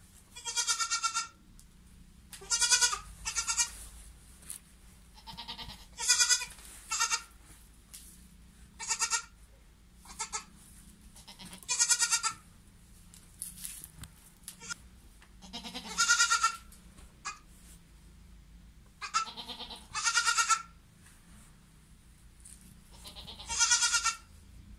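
A newborn goat kid bleating over and over for its mother: about a dozen short high-pitched bleats, some in quick pairs, every couple of seconds.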